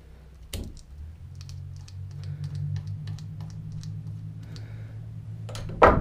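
A wrench clicking and tapping on a car starter's solenoid end as it is loosened: a knock about half a second in, then a run of light, irregular metal clicks. A steady low hum sets in about a second in and runs underneath.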